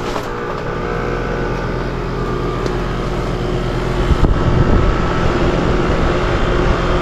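Trane XR heat pump outdoor unit running just after start-up, compressor and condenser fan humming steadily, with the thermostat bypassed by a jumper from R to Y. A louder rumble comes in about four seconds in.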